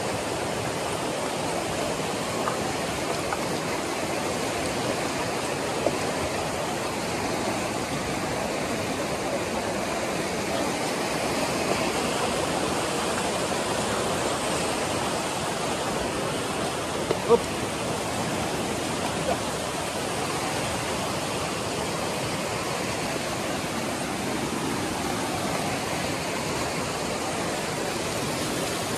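Steady rushing of flowing water, with a few brief knocks, the loudest about seventeen seconds in.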